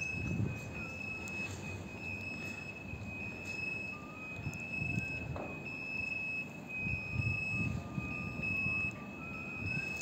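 Electronic warning alarm sounding a steady high-pitched tone with only brief breaks, over a gusty low rumble.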